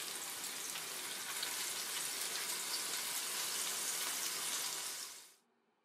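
Raw meatballs of mixed ground beef and pork sizzling in sesame oil in a frying pan, a steady sizzle with fine crackling. It fades out quickly about five seconds in.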